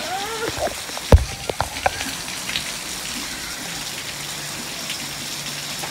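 Heavy rain falling steadily and splattering on a flooded walkway and yard, running off a roof edge. A sharp knock about a second in is the loudest sound, followed by a few lighter clicks.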